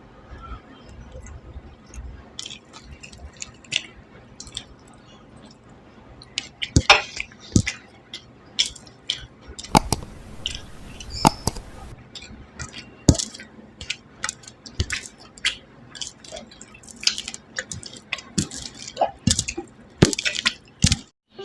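Close-up eating sounds of a rice-and-curry meal: wet squishing of food with many sharp, irregular clinks against dishes.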